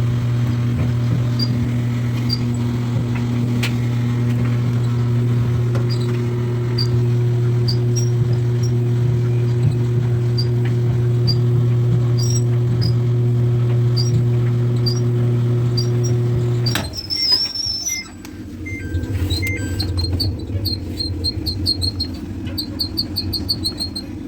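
Samsung clothes dryer running with a steady motor hum and a short high-pitched squeak about once a second, the squeaking noise that is its fault. About two-thirds of the way in the hum cuts off suddenly, and quicker bursts of high squeaks follow.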